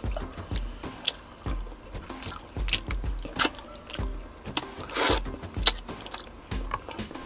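Close-miked eating of roast chicken by hand: irregular wet smacks and clicks of chewing and of fingers handling the greasy meat, with a louder, longer burst about five seconds in.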